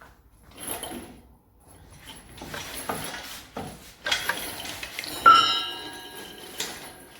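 Irregular metal clanks and clinks of tools and parts being handled, with one sharp ringing metal strike a little past five seconds in.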